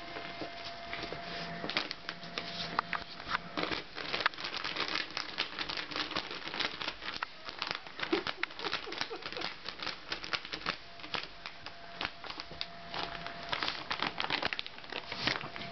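Yorkshire terrier digging and nosing into a plastic bag of multipurpose compost: rapid, irregular crinkling and scratching of the plastic.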